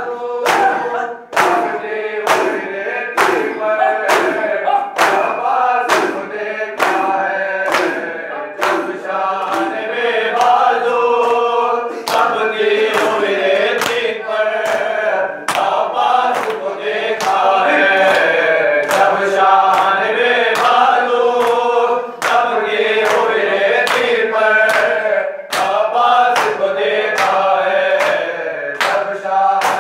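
Shia matam: a group of men chanting a nauha in unison, amplified through a microphone, while the mourners beat their chests with open hands in time, sharp slaps landing about once a second.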